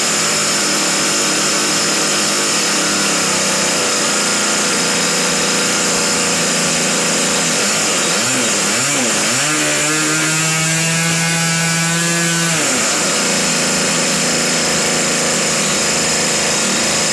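Evolution 20GX 20cc two-stroke gasoline model-airplane engine running loud with its propeller spinning, during a break-in run. Its pitch wavers about eight seconds in, then holds a steadier tone for about three seconds before shifting back.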